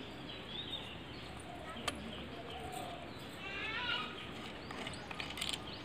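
Faint background animal calls, a few short rising-and-falling cries, with a single sharp click about two seconds in; no motor is running.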